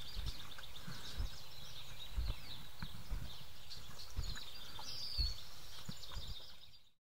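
Forest ambience with small birds chirping and twittering, one call gliding downward about five seconds in, over soft low thuds about once a second. The sound fades out just before the end.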